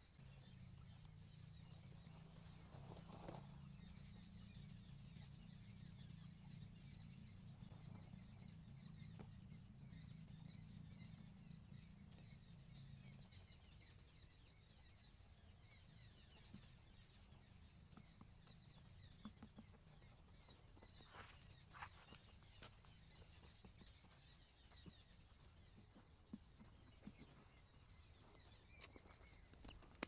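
Faint, high, rapid chirping of small birds, nearly continuous, over a low steady hum that fades out about 13 seconds in.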